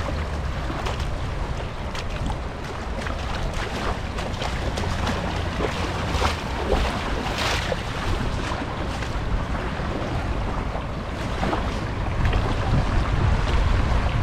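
Beach ambience: wind buffeting the microphone with a low rumble, over the wash of small waves on the shore.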